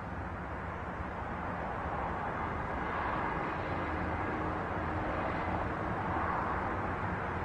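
Steady, even background hiss with no distinct events. A faint low hum comes in about three seconds in and fades a few seconds later.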